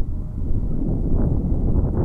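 Wind buffeting the microphone: a loud, uneven low rumble.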